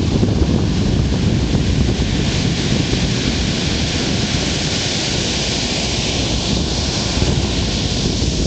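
Ocean surf washing onto a beach, the hiss of the wash swelling about halfway through, with wind buffeting the microphone as a steady low rumble.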